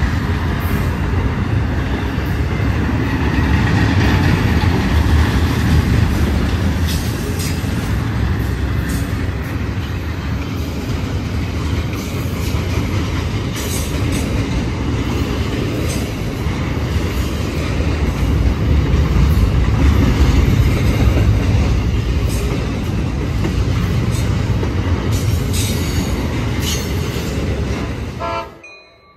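A train rolling on the rails: a steady loud rumble with scattered sharp clicks from the wheels, stopping abruptly near the end.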